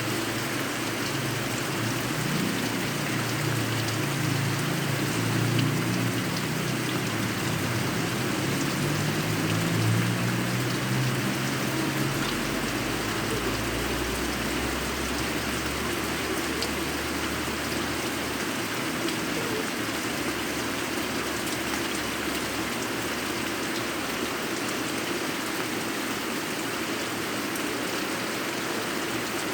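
Steady rain falling and hitting the ground.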